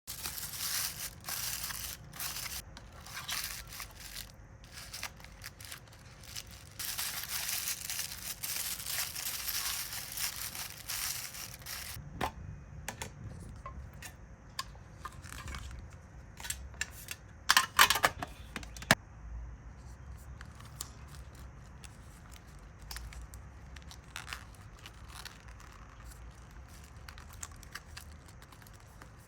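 Packaging material being handled during hand packing: dense crinkling and tearing for about the first twelve seconds, then scattered light clicks and taps, with a sharp cluster of knocks about eighteen seconds in.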